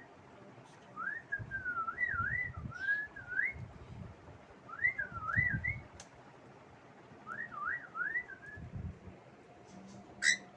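Cockatiel whistling in three short warbling phrases, each a quick run of rising and falling notes, with pauses between them. A short sharp sound comes near the end.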